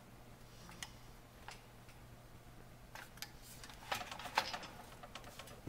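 Scattered light clicks and taps of small metal lock hardware being handled and fitted, with a quick cluster of them about four seconds in, over a faint steady hum.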